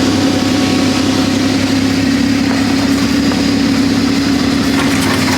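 ATV (quad bike) engine running steadily, a constant hum with no revving.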